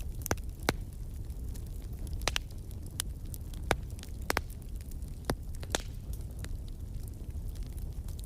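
Fireplace fire crackling: irregular sharp pops and snaps, a few each second at times, over a steady low rumble of the flames.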